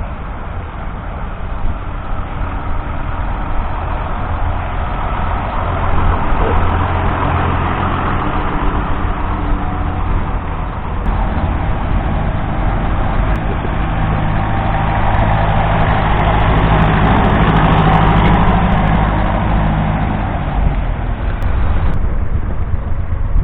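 Vintage tractor engine running steadily under load while ploughing, growing louder over the first few seconds, strongest a little past halfway, then easing near the end.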